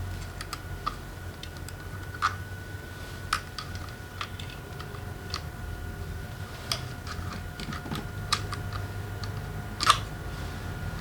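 Scattered light clicks and clinks of metal tools and engine parts being handled during motorcycle engine disassembly, irregular, with one louder knock near the end, over a steady low hum.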